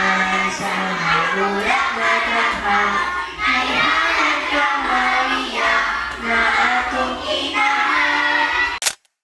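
A group of children singing a song together in unison. The singing stops abruptly near the end, followed by a brief click.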